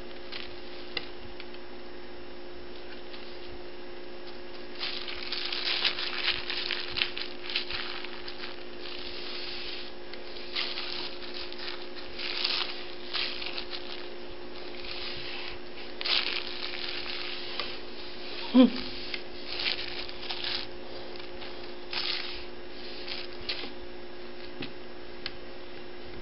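A kitten's claws and paws scrabbling and scratching on a paper sheet as it wrestles a person's hand, in repeated bursts of rustling. One short, louder thump or squeak comes about two-thirds of the way through, over a steady low electrical hum.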